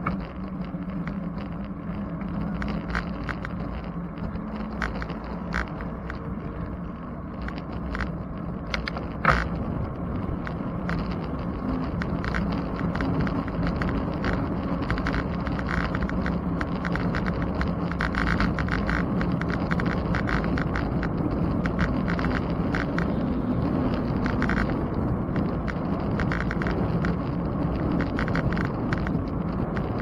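Bicycle riding along a paved road: steady tyre and wind rumble with frequent light rattles and clicks from the bike and camera mount over the road surface, one sharper click about nine seconds in. A van's engine runs alongside for the first few seconds, then fades.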